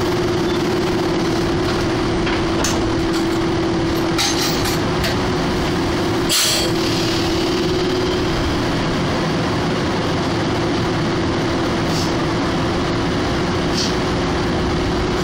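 Hanshin electric train heard from inside the driver's cab, standing and then starting to move off. A steady electrical hum runs under the noise, with a few sharp clicks and a short, stronger sound about six seconds in.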